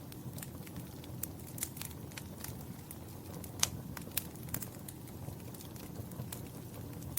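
Wood fire burning in a fireplace, a low steady rumble of flames with irregular sharp crackles and pops, the loudest pop about three and a half seconds in.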